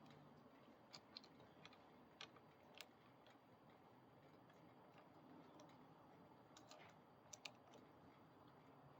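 Near silence with a few faint, sharp clicks and taps of small parts and tools being handled while a new brake lever is fitted on the handlebar. There is a cluster of clicks between one and three seconds in and a quick pair near seven and a half seconds.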